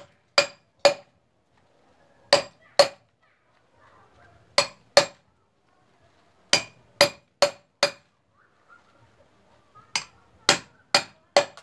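Hammer striking the back of a machete blade to chop through the plastic bristles of a PET-bottle broom: sharp, ringing metal-on-metal blows, in short runs of two to four about half a second apart, with pauses between runs.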